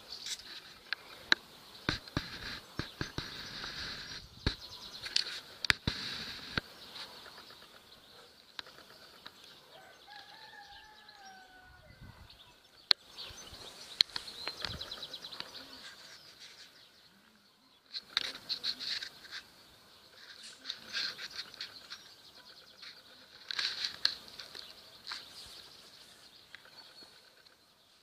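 Outdoor ambience of rustling and crackling clicks in bursts, over a high steady chirring that fades in and out. About ten seconds in, a single short bird call rises and falls in the distance.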